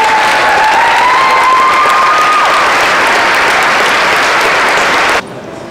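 Crowd applauding, with one long high note rising over the clapping for the first two seconds. The applause cuts off abruptly about five seconds in.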